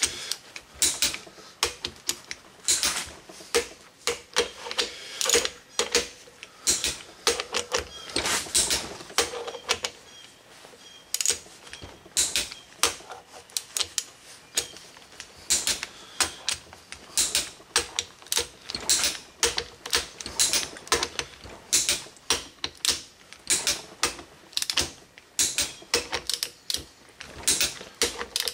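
Hand ratchet clicking in quick short strokes, over and over with a brief lull partway through, as bolts are run down and torqued to 65 foot-pounds.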